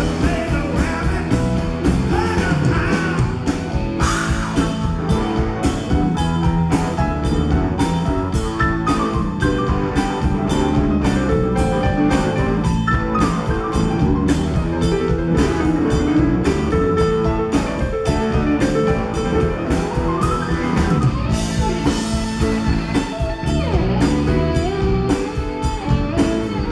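Live rock band playing amplified, with a steady drum-kit beat under electric guitar, bass and keyboards, recorded from the audience in a concert hall.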